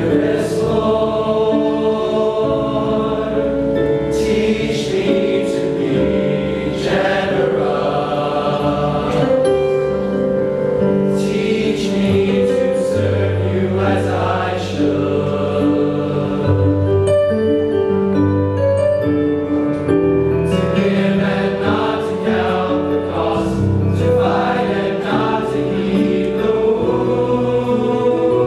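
A male choir of teenage voices singing a sacred piece in long, sustained chords, with soft sung consonants hissing between the held notes.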